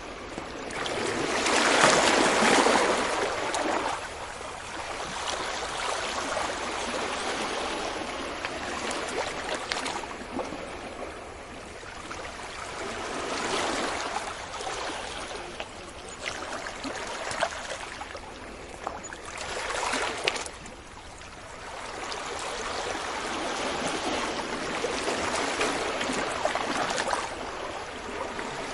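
Ocean waves breaking on a beach, the surf washing in and out in repeated surges. The loudest wave breaks about two seconds in, smaller ones come around 14 and 20 seconds in, and a long swell builds near the end.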